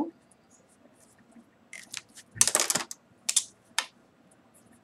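Pen writing on paper: a few short scratching strokes, the longest and loudest about halfway through.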